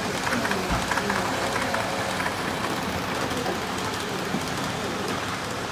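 HO-scale model trains, a Roco ÖBB Railjet and a Liliput WESTbahn KISS, running past on the layout track: a steady whir and rattle of wheels on the rails.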